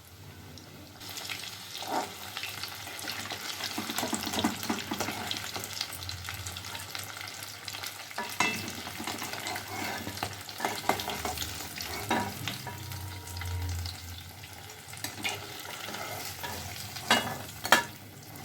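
Cheese balls deep-frying in hot oil: steady sizzling and crackling that swells about a second in. A few sharp knocks of a utensil against the pan stand out, the loudest near the end.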